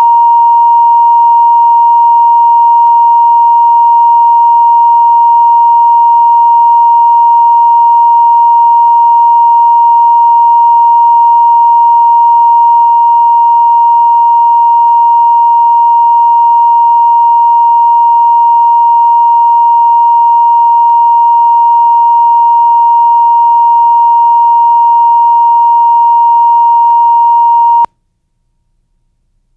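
Videotape line-up test tone played with colour bars: one steady pure tone at about 1 kHz that cuts off suddenly near the end.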